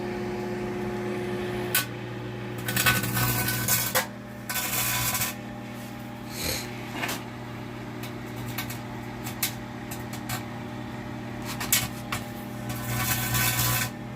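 Microwave oven running with a steady hum while metal inside it arcs, giving irregular sharp snaps and several crackling, buzzing bursts of sparking.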